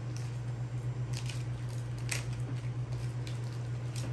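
Florist's knife cutting through the binding and stems of a hand-tied bouquet: a few short, scattered snips and crackles of stems and foliage. A steady low hum runs underneath.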